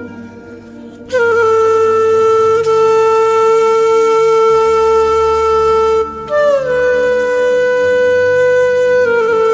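Background music: a wind instrument playing long held notes that slide into new pitches about a second in, again around six seconds in, and near the end, over a soft low drone.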